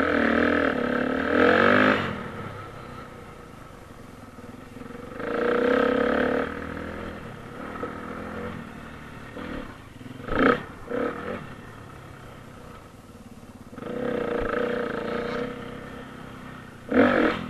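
Dirt bike engine being ridden hard, the throttle opened in loud bursts of a second or two, about every four to five seconds, with a run of short quick blips around the middle and quieter running between.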